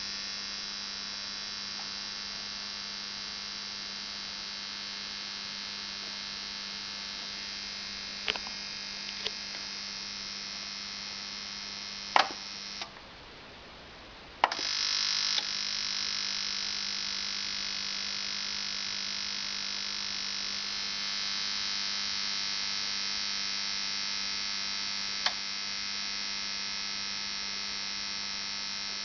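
Onkyo TX-NR709 AV receiver's power supply buzzing like an electric shaver: a steady, harsh hum with many overtones, a fault that sets in after about an hour of running. A few sharp clicks sound, and the buzz cuts out for about two seconds near the middle before coming back.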